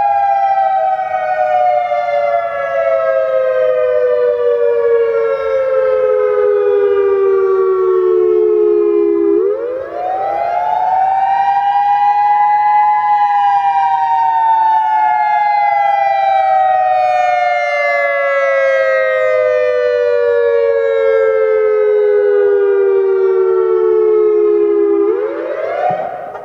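Federal Signal EOWS 612 electronic outdoor warning siren sounding the attack signal: a loud wail that rises quickly and then falls slowly over about twelve seconds. The cycle repeats, and the sound dies away near the end just as another rise begins.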